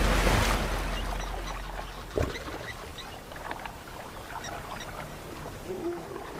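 Lioness and antelope splashing through shallow river water, the splashing loud at first and dying down within the first couple of seconds. A single sharp knock about two seconds in, then faint high squeaks over the quiet water.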